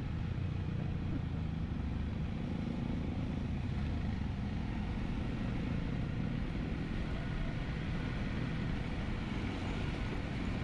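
Dual-sport motorcycle engine running steadily while riding along a gravel road, with road and wind noise.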